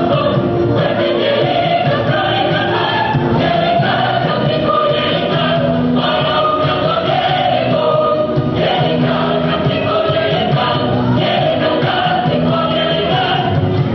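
Musical-theatre ensemble of voices singing a show tune together over band accompaniment.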